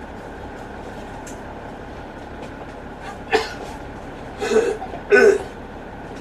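Steady engine and road noise inside a moving Alexander Dennis Enviro500 MMC double-decker bus. A sharp sound comes about three seconds in, then two short, louder bursts from a passenger a second or so later.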